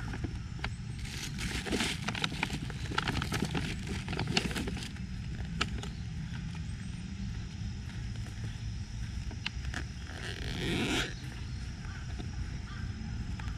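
Open-air ambience with a steady low rumble. A run of sharp clicks comes in the first few seconds, and a brief rustling noise about ten seconds in.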